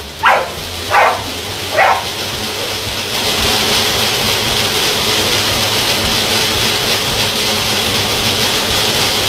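A dog barks three times in the first two seconds while running on a dog treadmill. Then comes a steady hissing whir of the treadmill belt under the running dog, growing louder about three seconds in.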